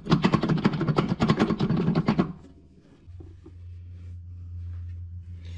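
Low/reverse clutch housing being jiggled and rocked back and forth as it is pushed down into an aluminium 200-4R transmission case: rapid metal-on-metal rattling and clicking for about two seconds, as the housing works its way down to seat. It stops, and a faint steady low hum is left.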